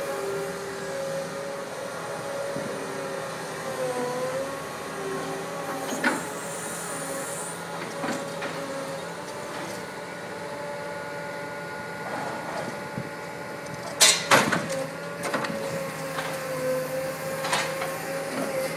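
Tracked demolition excavator running, its engine and hydraulics giving a steady whine that dips in pitch now and then. Scattered metal clanks, with two loud bangs about two-thirds of the way through.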